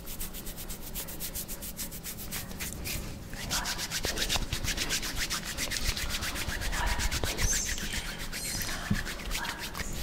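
Hands rubbing over bare skin, along the arm and palm against palm, close to the microphone: a fast, rhythmic run of dry, hissy strokes that gets louder and denser about three and a half seconds in.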